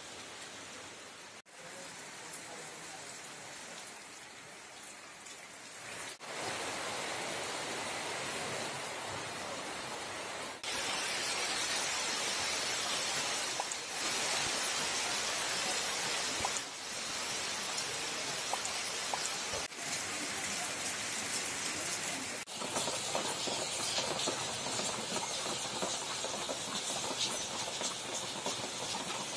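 Steady rain hissing down, the level jumping abruptly at several cuts and heavier from about ten seconds in. Near the end, single drops tick close by.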